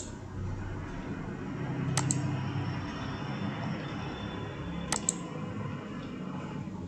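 Computer mouse clicking: a sharp click about two seconds in and a double click about five seconds in, over steady low room noise.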